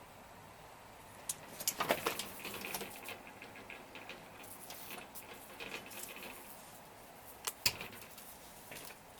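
A cat chattering: a rapid run of clicking, stuttering chirps that starts about a second in and goes on for several seconds, with a couple of sharp clicks near the end. This is the excited chatter a cat makes at prey it is watching, here a fly.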